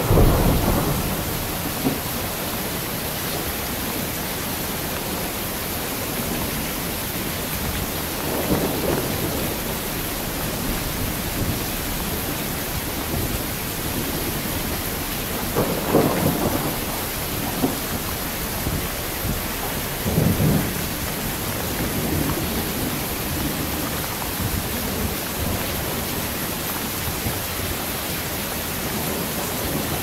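Heavy rain falling steadily, with thunder: a loud clap right at the start rolling off into rumble, then further rumbles about 9, 16 and 20 seconds in.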